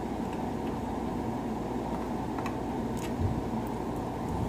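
Steady whirring of a fan or blower, with a few faint light ticks near the middle.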